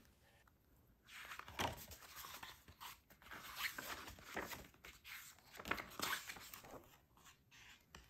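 Paper pages of a small user's manual booklet being turned one after another, a series of faint rustles and flaps.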